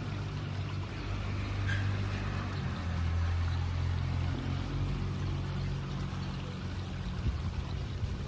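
Water flowing and trickling in a shallow canal, a steady rush, with a low engine hum underneath that shifts in pitch a couple of times.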